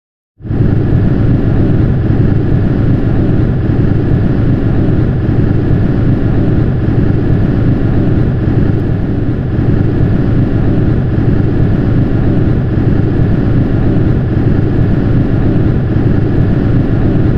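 Steady road and drivetrain noise inside a moving car's cabin, starting suddenly and running evenly. It is a cabin recording in which an abnormal noise the driver complained about is being traced.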